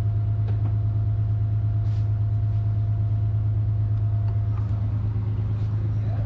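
A boat engine running steadily with an even, deep drone, with a few faint knocks on top of it; the drone shifts slightly near the end.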